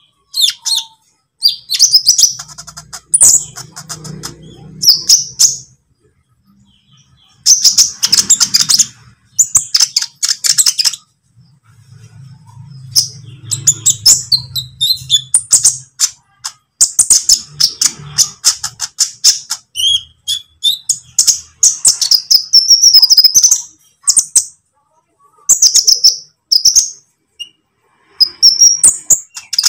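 Olive-backed sunbird (kolibri ninja) singing: repeated bursts of rapid, high twittering and chattering phrases with short pauses between them. A faint low hum sits under a few of the phrases.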